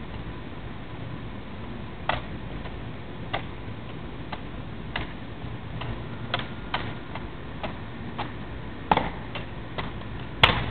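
A pen spun and passed between the fingers, making irregular light clicks and taps as it knocks against fingers and knuckles, with a louder knock near the end, over a steady low background hum.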